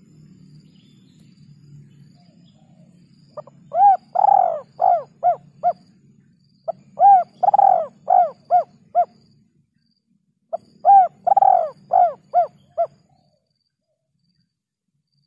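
Spotted dove (tekukur) cooing in three phrases of several short coos each, a few seconds apart, over a faint low hum. It is a lure call played to attract wild doves.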